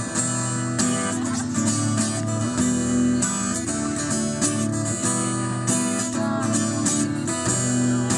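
Instrumental passage of a rock song, led by strummed acoustic guitar with no singing.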